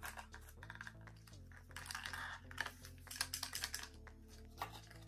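Quiet handling of a small cardboard box and its paper insert: light clicks, taps and rustles as it is opened and a smaller box is slid out, over soft background music.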